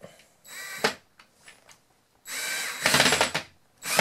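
Power drill run in short bursts, its motor whine rising and falling with the trigger: a brief burst about half a second in, then a longer one that turns rough and louder as the screw bites into the mirror bracket.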